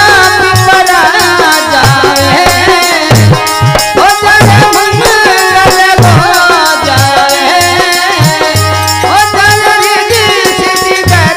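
Rajasthani devotional bhajan music: a wavering melody over a steady, fast rattling percussion beat and low drum strokes.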